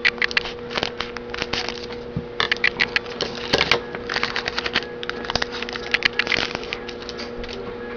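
Hockey trading cards being handled and flipped through: clusters of quick crackling clicks and rustles, with short lulls between them.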